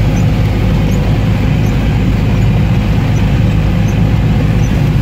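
Steady engine drone and tyre noise inside a UAZ off-roader's cab, driving on rain-soaked asphalt, with a hiss of water spray and rain over the low rumble.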